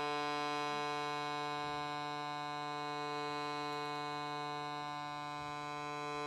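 Shruti box droning steadily in the key of C: a sustained chord of reedy tones held without a break or change.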